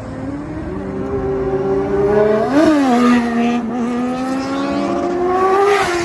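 Motorcycle engine running under way, its revs climbing slowly, with a brief sharp rise and fall in revs about two and a half seconds in, then climbing again toward the end.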